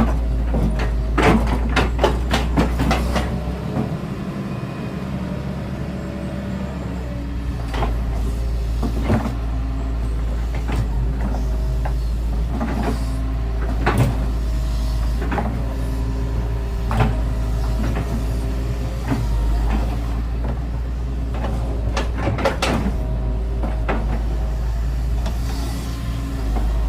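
Excavator's diesel engine running steadily with a deep rumble, with irregular sharp metallic clanks and knocks every second or few.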